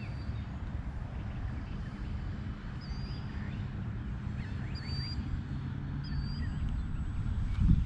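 Wind rumbling on the microphone, with birds chirping briefly a few times and a louder low bump near the end.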